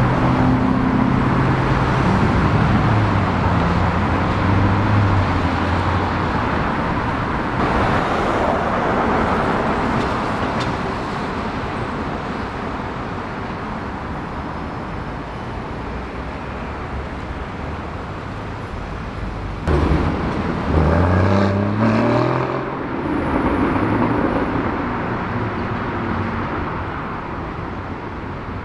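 Sports car engines in city street traffic, passing and pulling away. About two-thirds of the way through, an engine suddenly revs hard with its pitch climbing steeply, then rises again briefly a few seconds later.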